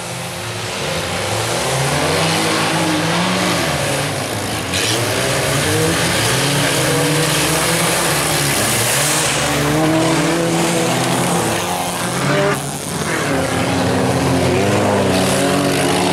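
Several old wreck-race cars racing together on a dirt track, their engines revving, pitches rising and falling and overlapping. The sound builds over the first two seconds, with a brief dip a little after twelve seconds.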